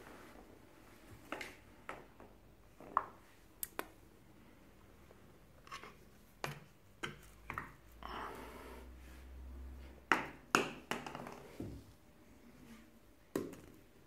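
Wine cork clicking and knocking on a tiled floor as a cat bats it around, a scatter of light taps with a cluster of louder knocks about ten seconds in. A low rumble just before that cluster.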